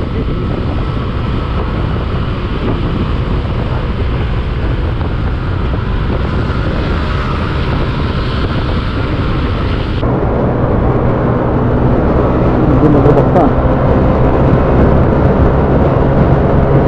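Yamaha Aerox scooter on the move: its engine runs steadily under wind and road noise. About ten seconds in, the sound changes abruptly, and the engine hum becomes steadier and louder.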